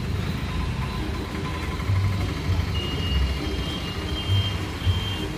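Bus and road traffic rumbling low and steadily. From about halfway in, a high-pitched beep repeats in short pulses.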